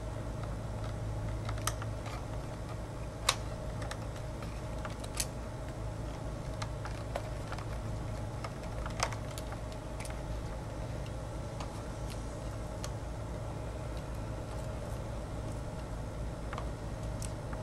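Scattered small clicks and taps of a small Phillips screwdriver and tiny screws being worked out of a black MacBook's case, at irregular intervals over a steady low hum.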